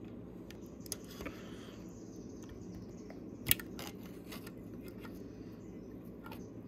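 Needle-nose pliers clicking and scraping as they press a small oil strainer, which catches dropped valve shims, into its tight port in the cylinder head. A few light clicks, the sharpest about three and a half seconds in.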